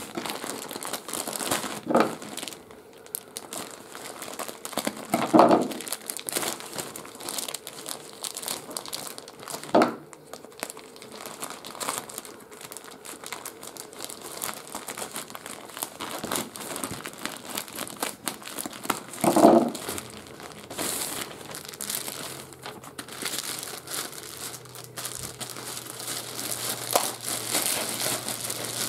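Plastic mailer bag and a clear plastic bag crinkling and rustling as they are handled, cut open with scissors and pulled apart. Several louder rustles stand out among the steady crinkling.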